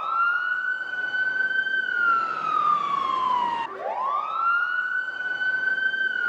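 Emergency-vehicle siren sounding a slow wail: the tone holds high, slides slowly down, then drops abruptly about halfway through and sweeps back up to hold high again.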